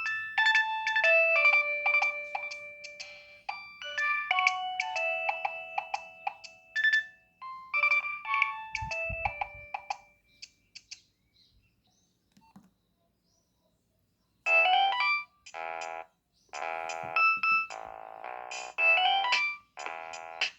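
Nokia 6560 mobile phone playing ringtones through its speaker: first a quick melody of clean single beeping notes, which stops about ten seconds in, then a low thump. After a few seconds of near silence, a second ringtone starts with buzzier, fuller notes in short repeated phrases.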